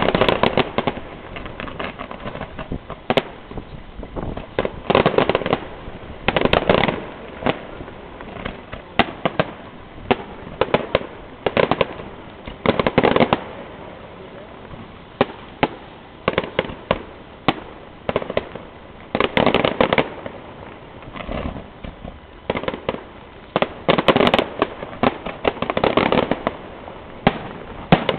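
Fireworks display: repeated sharp bangs and dense crackling bursts from exploding shells, coming in clusters every second or two.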